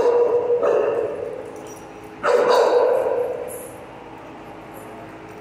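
A dog barks twice, about two seconds apart, each bark trailing off in the echo of a bare, hard-walled room.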